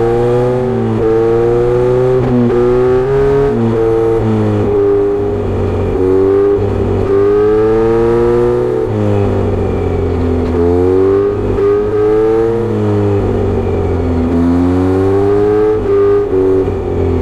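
Kawasaki Z900RS inline-four motorcycle with a Misty Kintaro short-pipe exhaust and 70 mm silencer, accelerating hard. The engine note climbs through the revs and drops back at each gear change, several times over.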